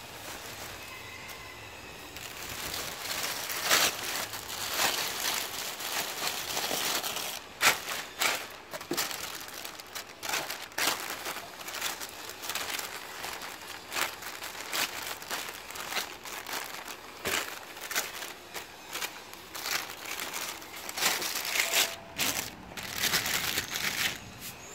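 Thin clear plastic bag of plastic-wrapped toilet paper rolls crinkling as it is handled. It gives irregular sharp crackles that start about two seconds in and carry on unevenly.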